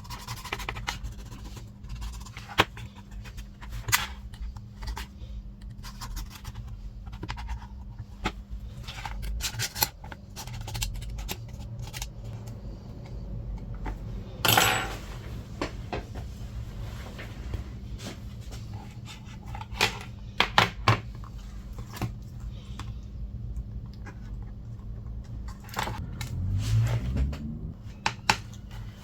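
Small tools clicking and scraping on an iPad's open frame in irregular, scattered clicks while leftover broken screen glass is cleared away. A steady low hum runs underneath.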